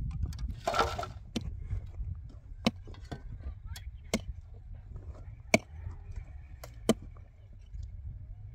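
A pick striking stony earth and rock in a trench: about seven sharp, irregularly spaced knocks. About a second in, a short scraping rattle of a shovelful of soil and stones. A steady low rumble runs underneath.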